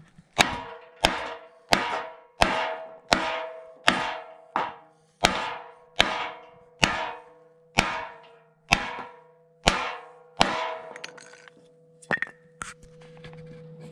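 Hammer blows driving new Parts Shop Max riser bushings into a car's subframe: about fifteen steady strikes, roughly one every two-thirds of a second, each leaving a ringing metal tone. The ring fades out after the last blow, and two lighter knocks follow near the end.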